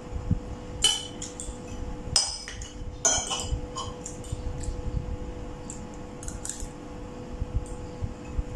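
Metal spoon and fork clinking and scraping against a ceramic bowl and plate while eating rice: a few sharp clinks in the first three seconds, then lighter scrapes and ticks. A faint steady hum runs underneath.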